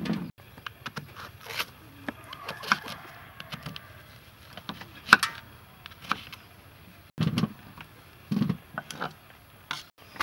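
Kitchen knife slicing through soft soursop flesh and knocking on a wooden chopping board: scattered sharp taps and clicks with a few duller thumps. The sound drops out abruptly a few times.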